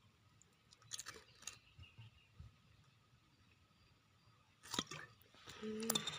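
Faint scattered clicks and crinkles of a bottle being handled, with a short rush of noise and a low hum near the end.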